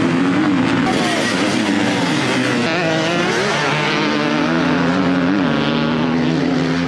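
Motocross dirt bikes revving hard, the engine pitch rising and falling with the throttle.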